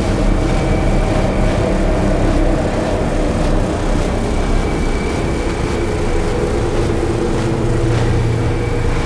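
Experimental drone and noise music: a loud, steady wall of low rumble and held tones under a haze of noise, with a deeper tone swelling near the end.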